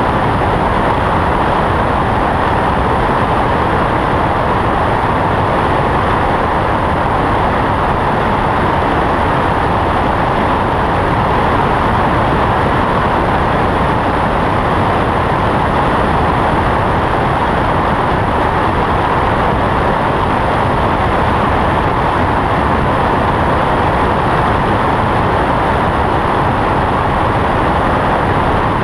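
Cessna 172 in level flight: its engine and propeller running steadily under loud rushing airflow, heard by a camera mounted outside the aircraft, with no change in pitch or level.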